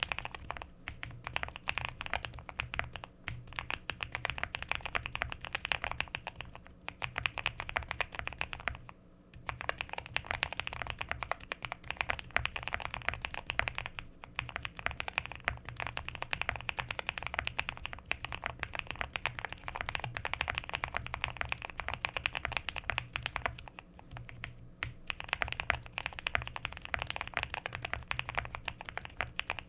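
Typing on a QK65 65% mechanical keyboard with a POM plate, full foam, lubed-style linear frankenswitches (Nixdorf top, Boba LT stem, Lilac bottom), Owlstabs and PBT keycaps. Fast, continuous keystrokes with a few brief pauses.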